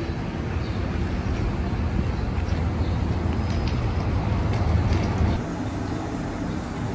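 Steady low outdoor rumble of road traffic, dropping off about five seconds in.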